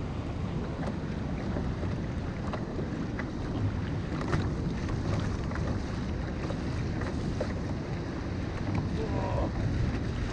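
Steady wind noise on the microphone over rough sea, with small splashes and taps of water around a kayak.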